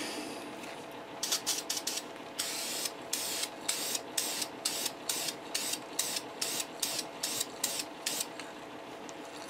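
Rust-Oleum aerosol spray paint can hissing in many short bursts, a few a second, with one longer spray about two and a half seconds in, as a third coat of orange paint is laid onto an upright test panel.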